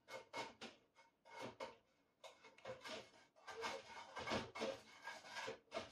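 Food being worked in a bowl: quick, irregular scraping and rubbing strokes, several a second, with a short pause about two seconds in.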